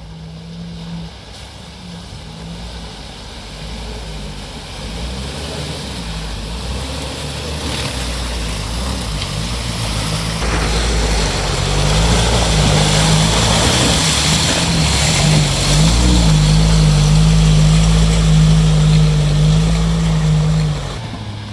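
Off-road vehicle engine working under load, its revs rising and falling, growing steadily louder as it comes closer, then dropping away suddenly near the end.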